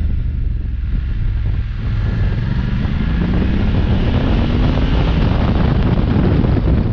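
BMW F850GS parallel-twin engine pulling up through the revs as the bike accelerates out of a hairpin, its note rising steadily, under heavy wind noise on the microphone.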